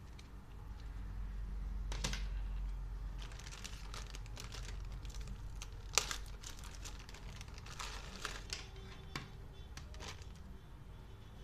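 Packaging being handled by hand: irregular crinkling and rustling with a few sharp clicks, the loudest about six seconds in.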